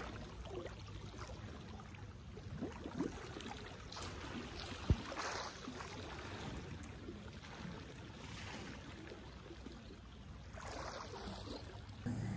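Swimming-pool water lapping and splashing quietly at the surface while a person swims through it, with one sharp knock about five seconds in.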